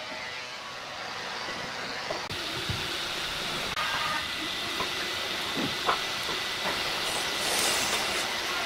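Sliding table saw running without cutting, a steady machine whine and hiss, with a few sharp knocks as a thick wooden board is laid on the saw table and lined up.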